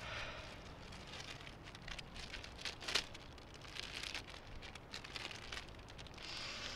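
A small clear plastic bag crinkling and rustling as it is handled, coming and going in short spells.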